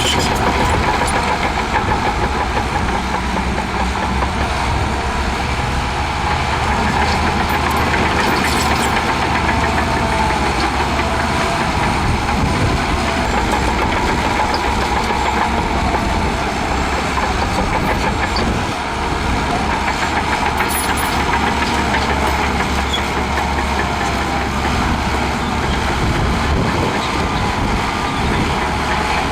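Shantui DH17C2 bulldozer's diesel engine running steadily while pushing sand, with a wavering higher whine running through it.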